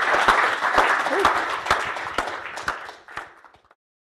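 Audience applauding after a talk, the clapping dying away and ending about three and a half seconds in.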